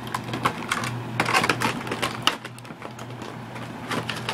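Irregular clicking and rattling of a spring airsoft pistol being handled as its magazine is worked out, over a low steady hum.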